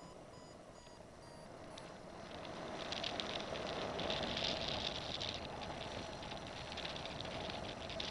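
Wind rushing over the camera microphone during paraglider flight, gusting louder and hissing from about three seconds in.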